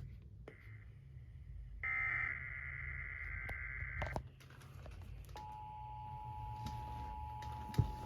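Emergency Alert System signalling over weather radio: a burst of digital data tones (the SAME header) for about two seconds. Then, about five seconds in, the steady two-tone EAS attention signal begins and holds.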